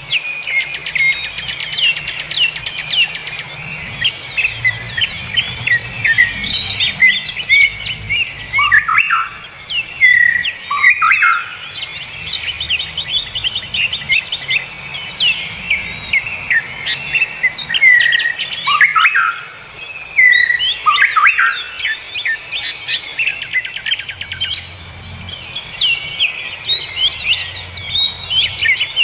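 Songbirds chirping and calling in a dense, continuous chorus of quick high overlapping notes, with a few louder falling whistles every several seconds.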